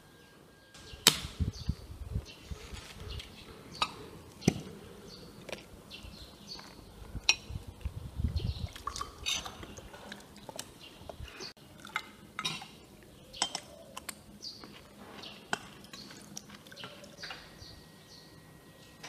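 Cutlery clinking and scraping on china plates during a meal, with scattered sharp clinks, the loudest about a second in. A drink is poured from a glass bottle into a glass.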